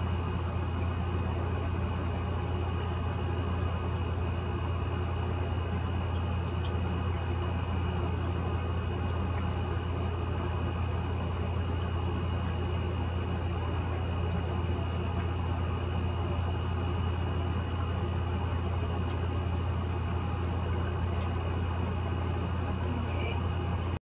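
Steady low hum with a faint high whine above it, unchanging throughout, like background room machinery or electrical noise.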